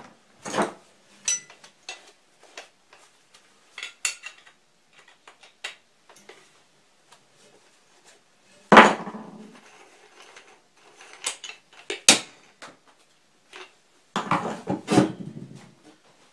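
Metal tools, an angle grinder among them, being handled and set down on a steel-plate welding table. Scattered clicks and knocks, one loud clank about nine seconds in, and a burst of clattering near the end.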